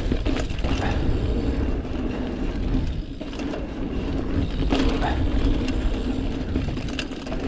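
Mountain bike rolling over a packed-dirt forest singletrack: a steady rumble of the tyres on the dirt, with the bike's drivetrain and frame rattling and clicking a few times over bumps.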